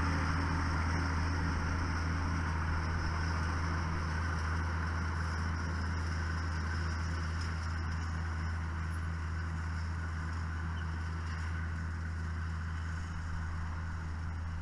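Tractor engine running steadily at one speed, a low drone that grows a little quieter over the stretch.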